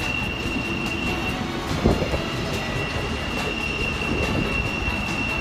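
Empty double-stack intermodal well cars rolling past on a tight curve: a low rumble with scattered clicks from the wheels, and a steady high-pitched wheel squeal that breaks off for a moment and returns, with a thump at the break about two seconds in.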